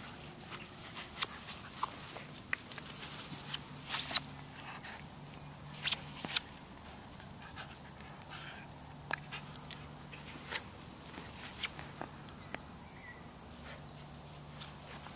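Welsh terrier puppy tussling with a plush toy on grass: a run of short clicks, scuffles and small knocks, the sharpest about four and six seconds in.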